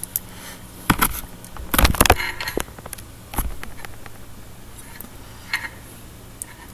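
Handling noise: a handful of sharp knocks and clicks as a tub of small sausages is handled and moved around, the loudest in the first half, fainter ticks later, over a low steady hum.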